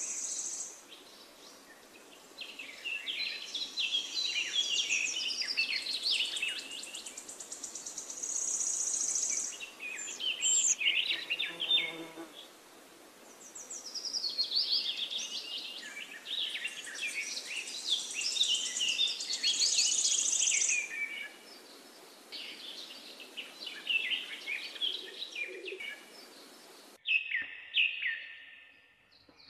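Birds chirping and singing in quick, high, repeated phrases, with a high buzzing trill in places.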